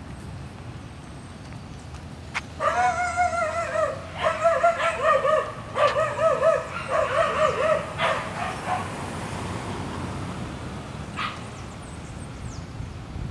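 A dog whining and yelping in high, wavering cries, broken into several stretches over about six seconds, over a steady low rumble of traffic.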